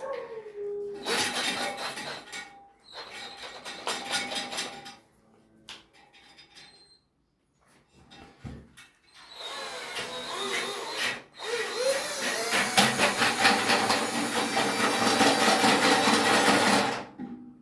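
Scraping, rasping tool noise in several bursts, the longest starting about halfway through, as a blocked toilet is worked to check for a blockage.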